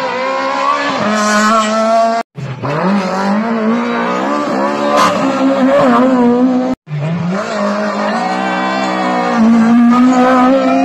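Rally car engines driven hard at high revs, the pitch dipping and climbing again through gear changes as each car passes. The sound breaks off twice, where one car's pass cuts to the next.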